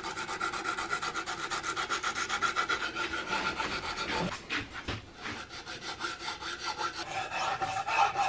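Sandpaper wrapped around a file rubbing back and forth on a wooden rifle stock in quick, even strokes, sanding out file marks. The strokes pause briefly about four and a half seconds in.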